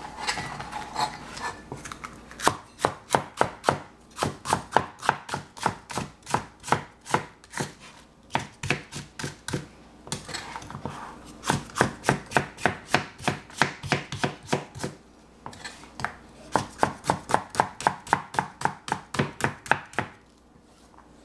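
Kitchen knife chopping green cauliflower in quick, regular strokes, about three to four a second, in several runs with short pauses between them.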